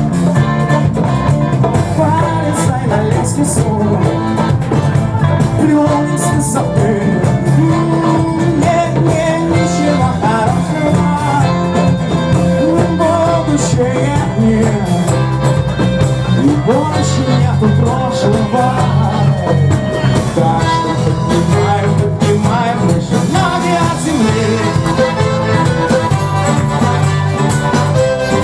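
A live band playing a song with a singer, over a steady bass line.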